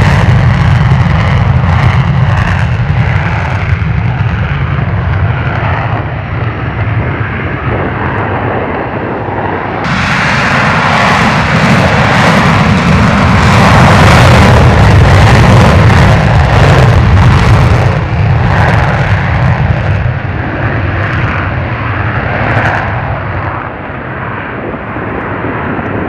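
F/A-18C Hornet's twin General Electric F404 afterburning turbofans at full afterburner on a take-off run, a loud continuous jet roar with a deep rumble. About ten seconds in, the roar suddenly turns harsher and brighter and is loudest a few seconds later. It then eases off as the jet climbs away.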